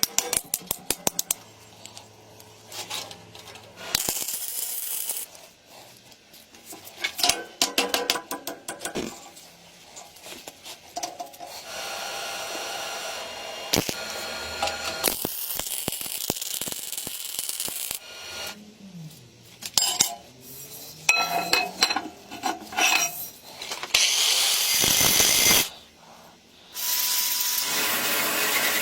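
Workshop work on metal parts: many clinks, taps and clicks of small metal pieces and hand tools, broken by several hissing runs of noise one to three seconds long.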